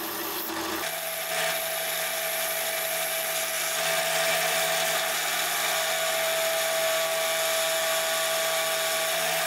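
Drill press running steadily, spinning a turned cherry-wood handle in its chuck while a metal file is held against it to smooth the wood: an even motor hum with a steady hiss from the file on the spinning wood. The hum shifts about a second in.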